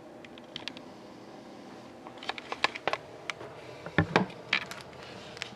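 Light clicks and taps of cards and a cardboard box being handled on a tabletop, with a couple of heavier knocks about four seconds in.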